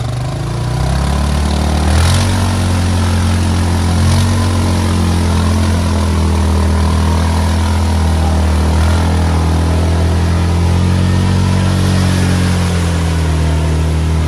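ATV engine revving up about a second in and then held at steady high revs, wavering slightly, as it works through mud.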